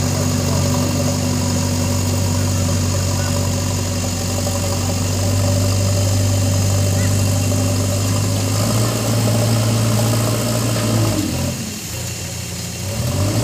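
JCB backhoe loader's diesel engine running as the machine drives over the ground with its front bucket lowered, levelling soil. The engine note steps up about two-thirds of the way through, dips briefly near the end, then picks up again.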